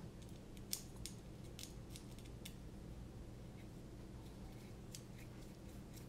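Light clicks and taps of a carbon-fibre drone frame and its red standoffs being handled and fitted together, several in the first two and a half seconds and sparser after, over a faint steady low hum.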